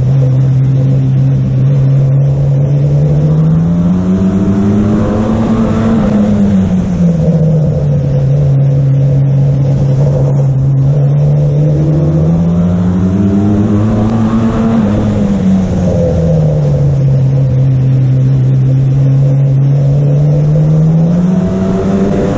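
Race car's engine heard from on board, revving up along the straights and easing back into the turns. Its pitch rises and falls about every eight seconds, twice, and climbs again near the end.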